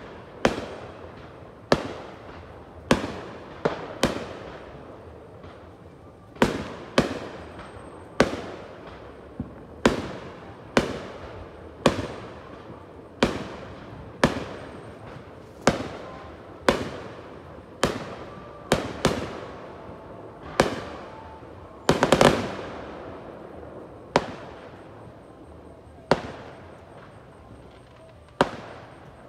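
Aerial fireworks bursting: sharp bangs about once a second, each trailing off in an echo, with a quick cluster of several bangs about two-thirds of the way through.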